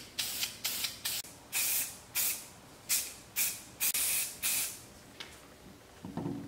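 Aerosol spray-paint can spraying in about nine short hissing bursts over the first four and a half seconds. A brief low knock follows about six seconds in.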